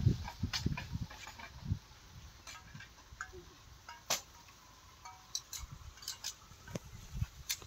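Scattered light clicks and metallic clinks from metal parts being handled at an idle diesel pump set, with one sharp click about four seconds in the loudest.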